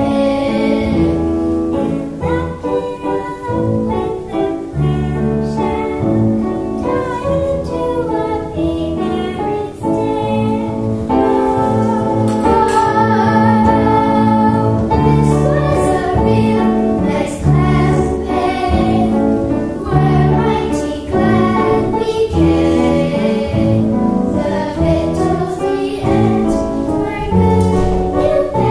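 A group of young girls singing a song together.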